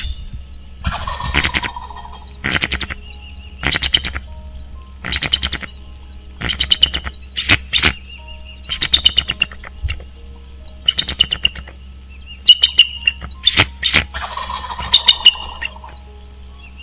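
Bald eagle calling: a series of short bursts of rapid, high-pitched chattering notes, roughly one burst every second or so. Twice, near the start and near the end, a lower, rougher sound comes with the calls.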